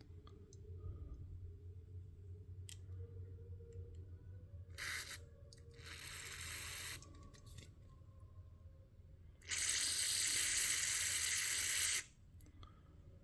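Spray hissing in three bursts while the small-engine carburetor's passages are being cleared: a short burst about five seconds in, a second lasting about a second, then the longest and loudest of about two and a half seconds near the end.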